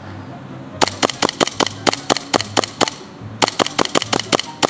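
Airsoft guns firing: two rapid strings of sharp shots, roughly five or six a second, with a short gap about three seconds in.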